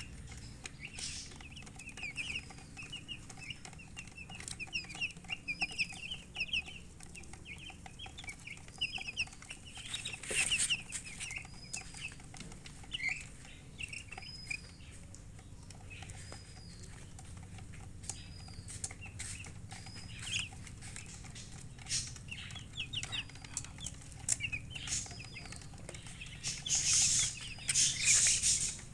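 Chickens chirping: quick runs of high chirps and repeated thin peeps about once a second, with a hen clucking. There are bursts of loud rustling about ten seconds in and again near the end.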